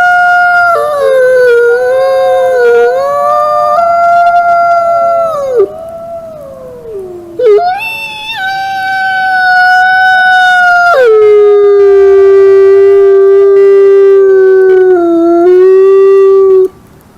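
Wolves howling: long, held howls, two voices overlapping at first, then a higher howl followed by a long, lower one that cuts off suddenly near the end.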